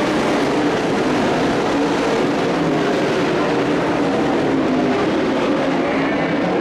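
Several dirt-track race trucks' engines running hard together around the oval, their overlapping engine notes steady and loud.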